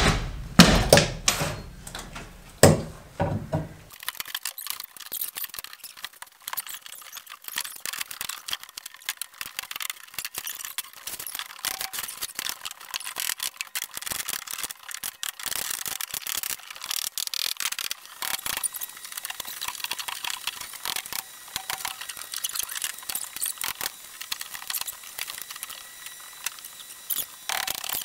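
Heavy thumps and knocks of an old mobile-home subfloor being stomped loose and pried up. After about four seconds, the sound becomes a dense, continuous run of thin, high-pitched clicks and squeaks with no low thuds.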